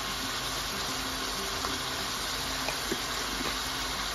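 Eggplant and pepper sauce simmering in a pot: a steady hiss with a few faint pops.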